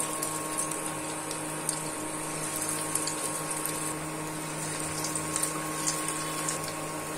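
Dal piyaju (lentil-onion fritters) frying in hot oil in a nonstick pan: a steady sizzle with small crackles and pops, over a faint steady low hum.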